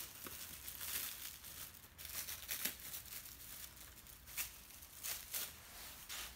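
Plastic cling wrap crinkling and crackling in irregular bursts as it is peeled off a cut avocado half.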